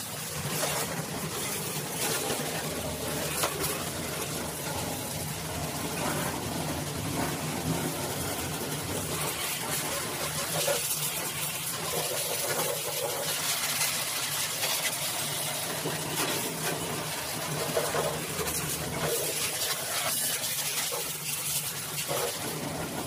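High-pressure washer spraying a jet of water against a car's underbody, a steady hissing spray, with the washer's pump motor humming steadily underneath.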